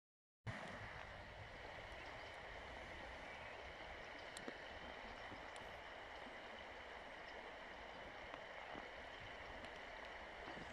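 Shallow river water running over pebbles: a steady rush that starts about half a second in, with a few faint ticks.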